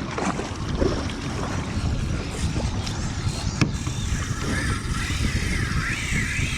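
Wind rushing over the microphone and water noise around a kayak on the open sea, with a single sharp knock about three and a half seconds in and a faint wavering whine in the last couple of seconds.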